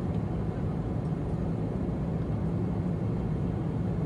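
Steady low drone of a Boeing 777-300ER airliner cabin in cruise flight: engine and airflow noise heard from a window seat.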